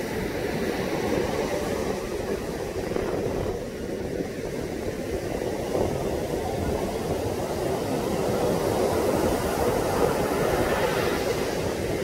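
Heavy surf breaking and washing up a sandy beach, with strong wind buffeting the microphone: a steady, dense rushing noise that eases slightly a few seconds in and swells again in the second half.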